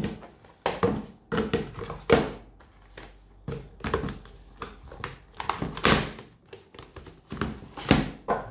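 A film box set being handled: an irregular series of knocks, taps and scraping rustles as the box and its contents are moved about, the loudest a little after two seconds, near six and near eight seconds.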